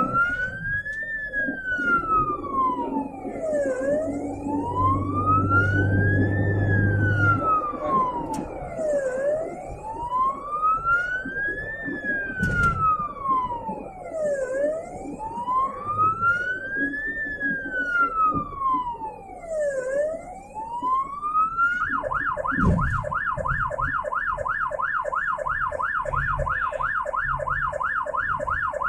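Ambulance siren in a slow wail, rising and falling about every five seconds, switching near the end to a fast yelp of several sweeps a second. Vehicle engine and road rumble underneath.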